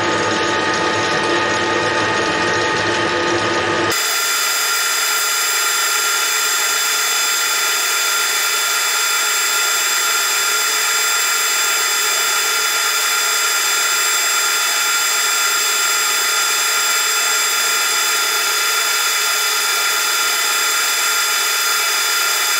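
Metal lathe running steadily with a high gear whine while a parting tool cuts off a small brass piece. About four seconds in the sound changes, losing its low hum.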